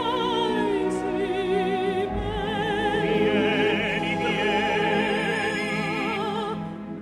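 Background music: an operatic voice singing with wide vibrato over an orchestra.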